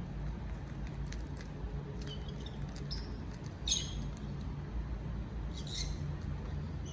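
Lovebird chicks giving a few short, high squeaks, the loudest about midway, with faint scattered ticks, over a steady low hum.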